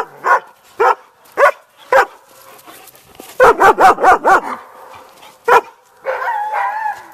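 A dog barking: four sharp barks about half a second apart, a rapid run of about five barks a second and a half later, one more bark, then a wavering whine near the end.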